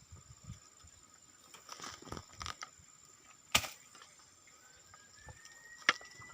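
Dry rustling and crackling with two sharp snaps, over a steady high-pitched night drone. A faint whistle slowly rises in pitch in the second half.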